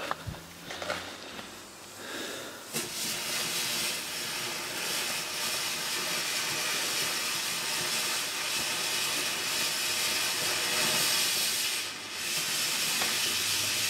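A garden firework fountain hissing steadily as it sprays sparks. The hiss starts about three seconds in, after a few faint crackles, and dips briefly near the end.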